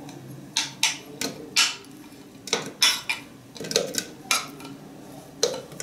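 About ten irregular knocks and clicks as pitted Ajwa dates are tipped from a plate into an empty plastic Moulinex blender jar, the plate knocking against the jar.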